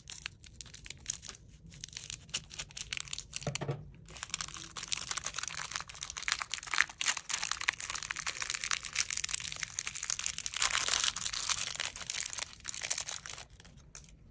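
Slime being handled close to the microphone: a dense crackling and crinkling of many small pops and clicks that thickens about four seconds in and stops just before the end.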